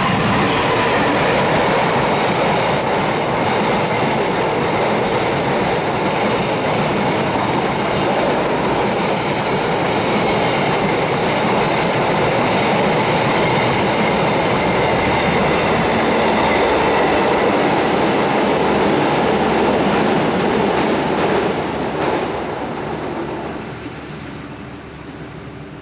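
KA Sawunggalih passenger train crossing a steel truss railway bridge: a loud, steady rumble of the coaches' wheels on the rails with some clickety-clack. It fades away over the last few seconds as the end of the train leaves the bridge.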